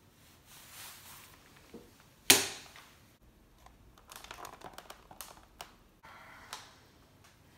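Playing cards and small objects handled on a wooden table: one sharp click about two seconds in, then a run of small clicks and rustles, and a card slapped down near the end.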